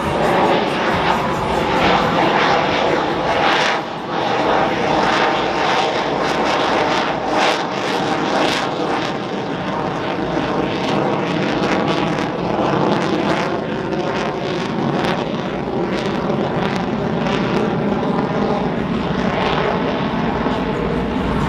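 Loud, continuous jet noise from an F-22 Raptor's two Pratt & Whitney F119 afterburning turbofans as the fighter manoeuvres overhead, with the afterburners lit near the end.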